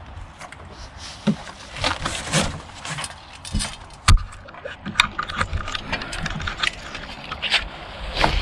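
Cardboard packaging and a large solar panel being handled and shifted: irregular scraping and rustling with scattered knocks, the sharpest about four seconds in.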